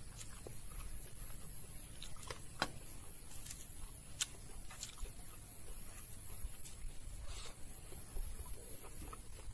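Eating by hand: rice scraped off a small steel plate and mixed with the fingers on a plate, with scattered sharp clicks and chewing. A faint steady high-pitched whine runs underneath.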